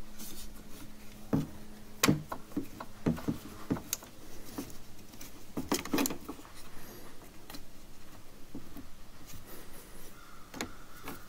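Irregular clicks and knocks of metal and plastic parts being handled inside a truck door, as the door-latch link rod is fitted and clipped into the new exterior door handle.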